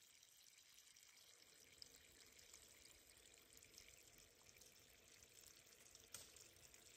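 Near silence: a faint steady hiss with a few light ticks and one sharper click about six seconds in.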